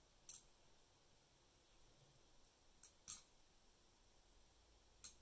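Four short, sharp clicks from handling a digital pocket jewelry scale as its buttons are pressed to tare it: one about a third of a second in, a close pair about three seconds in (the loudest), and one near the end.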